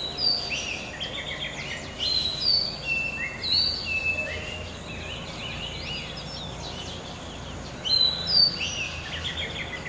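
Oriental magpie-robin singing: phrases of clear, sliding whistled notes in three bursts, at the start, from about two to four seconds in, and again around eight seconds. Softer notes fall between the bursts, over a steady background hiss.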